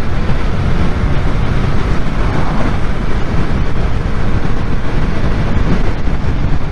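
Heavy wind rush on a helmet microphone at motorway speed, about 136 km/h, with a Yamaha motorcycle's engine and tyre noise underneath, steady throughout.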